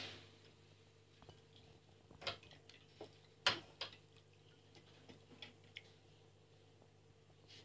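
Raccoon handling a bowl in a stainless steel sink: irregular small clicks, taps and knocks of paws and bowl against the sink, the loudest a knock about three and a half seconds in, over a faint steady hum.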